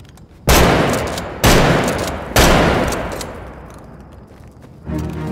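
Three gunshots from a handgun, about a second apart, each a sharp crack followed by a long fading echo.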